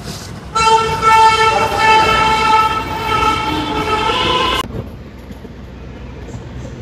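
A loud, horn-like sustained tone with several pitches, lasting about four seconds, then cut off abruptly.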